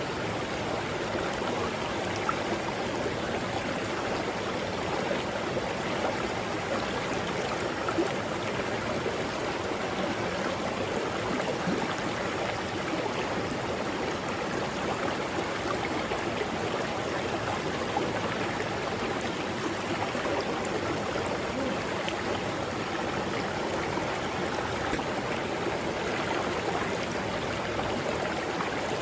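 Mountain river rushing over rocks: a steady, even flow of water with gurgling.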